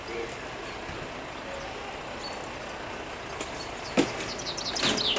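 Outdoor background noise, steady throughout, with a sharp click about four seconds in and, near the end, a bird starting a rapid trill of short high chirps that each fall in pitch.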